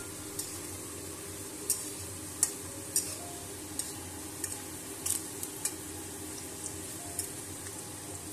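Cubed potatoes sizzling steadily in hot oil in a metal kadai while a metal spatula stirs them, with sharp clicks now and then as it knocks and scrapes against the pan.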